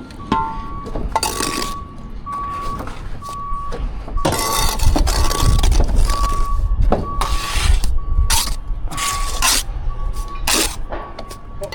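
A site vehicle's reversing alarm beeping steadily on one pitch, a little more than one beep a second, over a low engine rumble that swells about halfway through, with short bursts of scraping noise.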